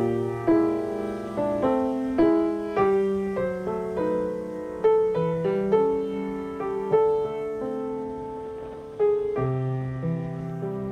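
Background piano music: notes and chords struck about every half second to a second, each dying away.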